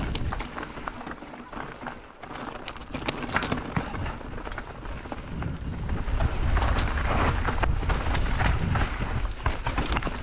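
Canyon Strive enduro mountain bike descending a rough trail: tyres crackling and skittering over loose stones and the bike rattling, with a fluctuating wind rumble on the action camera's microphone. It eases off for a moment about two seconds in and is louder from about halfway.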